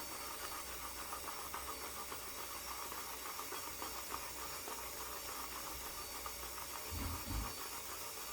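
Synthetic shaving brush whipping shaving soap into lather in a copper lather bowl: a steady, rapid wet swishing, with one brief low bump about seven seconds in.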